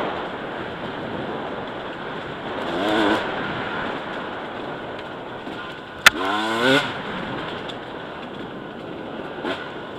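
KTM 250 EXC two-stroke enduro motorcycle ridden on a dirt trail, heard from a helmet camera: steady engine and wind rush, with the revs rising and falling briefly about three seconds in and again just after six seconds. A sharp knock comes right before the second rev.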